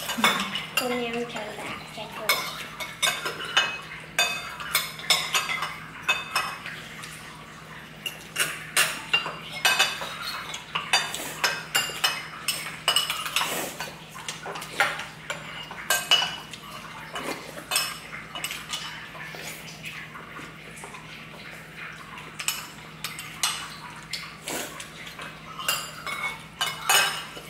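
Cutlery clinking and scraping against bowls and dishes as people eat, in many irregular sharp clinks, over a faint steady hum.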